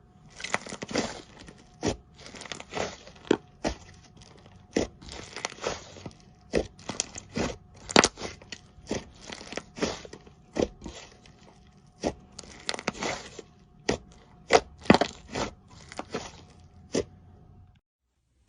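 Slime being squeezed and poked by hand, giving sharp irregular pops and clicks with softer crackling between them; it stops abruptly near the end.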